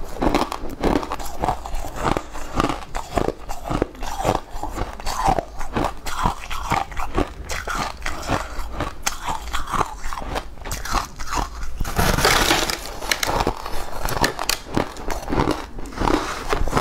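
Biting and chewing a slab of blue-tinted ice, crisp crunches several times a second close to a lapel microphone, with a longer, denser stretch of crunching about twelve seconds in.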